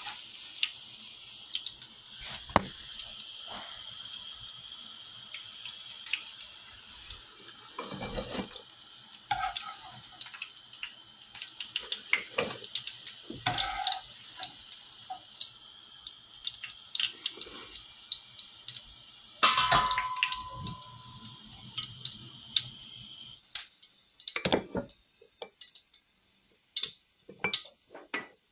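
Kitchen tap running into a sink, with scattered clinks and knocks of dishes and utensils; the water shuts off a few seconds before the end, leaving only the clicks and knocks.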